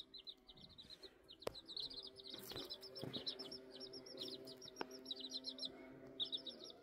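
Chicks peeping faintly in runs of short, high chirps, several a second, with short pauses between runs. Two light clicks, about a second and a half and about five seconds in.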